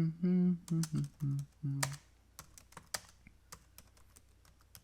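Typing on a computer keyboard, with scattered key clicks throughout. A man hums in short, low, steady notes through the first two seconds.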